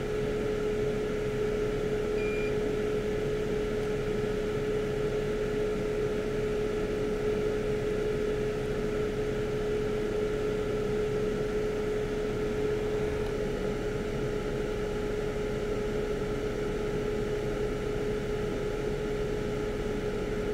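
Steady hum of a small motor running, with one constant mid-pitched tone that holds unchanged throughout.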